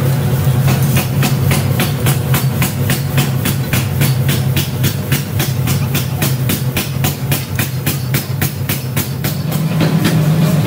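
Workshop machinery: a steady low hum with sharp, evenly spaced clicks about four times a second, the clicks fading out near the end.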